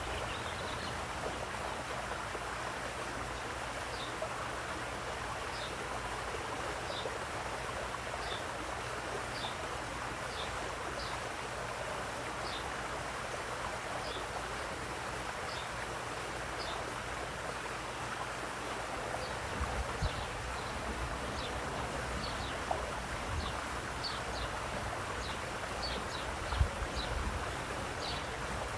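Running water splashing steadily, with a small bird repeating short high chirps about once a second. There are brief low rumbles around two-thirds of the way through and a louder one near the end.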